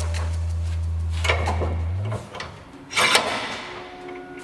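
Bench vise being worked by hand: two short noisy bursts, about a second in and again a little after three seconds, as a small metal part is set between its jaws and the handle is turned.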